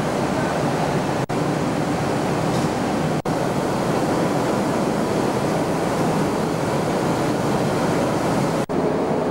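Steady loud rushing noise of distillery plant machinery in the still house, with three brief dropouts where the camcorder recording cuts.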